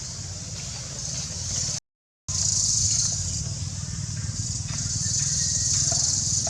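A steady high-pitched buzzing drone over a low rumble, cut off for about half a second roughly two seconds in.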